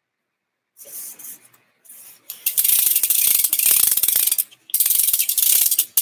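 BMX rear hub freewheel clicking in a fast, even ratchet as the rear wheel is spun on the stand. A few short scuffs of hands on the wheel come first, and the clicking starts about two seconds in.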